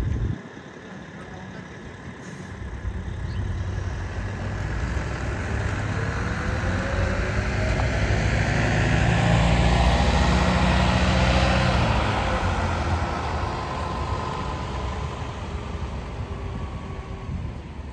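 A motor vehicle passing by: engine and tyre noise swelling to a peak about ten seconds in, then fading away.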